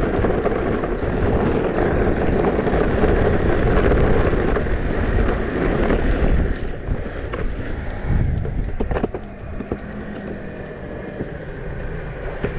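Electric skateboard wheels rolling fast over cement with wind on the microphone, a steady loud rumble that drops quieter about six seconds in, with a few sharp clicks shortly after.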